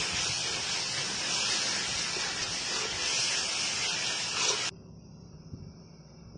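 Tomato and onion masala sizzling in a large metal pan as a metal spatula stirs it. The sizzle cuts off suddenly about two thirds of the way through, leaving a faint, quiet background.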